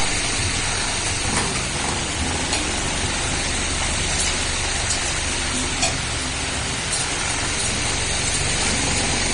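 Steady hiss of background noise throughout, with a few faint clinks of spoons and forks against plates.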